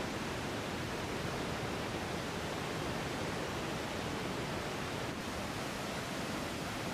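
Steady rushing of a swollen river in flood, an even, unbroken noise of fast-flowing water.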